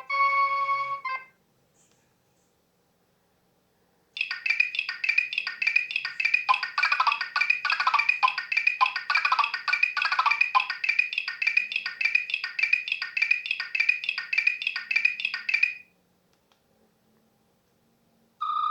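Nokia 6100 mobile phone playing its built-in ringtones through its small loudspeaker. The last held note of one tone stops about a second in. After about three seconds of silence, the next tone plays a fast run of bright repeated beeping notes for about twelve seconds, with a lower line of notes joining in its middle. A further tone starts just at the end.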